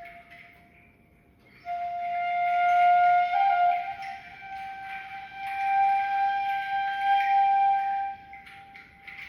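Violin playing long, slow held notes with a soft, flute-like tone: after a short pause one note sounds, steps up in pitch about two seconds later, and is held until it fades near the end.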